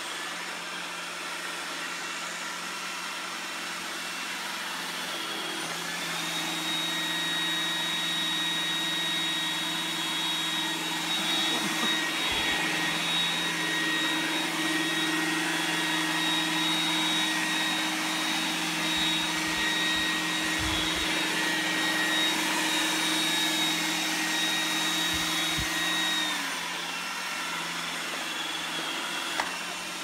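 Roomba robot vacuum running with a steady whirring hum. It grows louder and higher-toned about six seconds in and drops back to a softer hum near the end.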